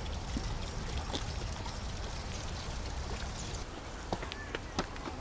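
Steady rumbling noise of wind buffeting the camera microphone, with a few sharp footsteps on stone steps over the last second or so.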